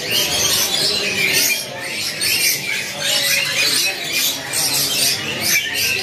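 Many caged canaries and finches chirping and twittering at once: a dense, overlapping chatter of short high calls with no pause.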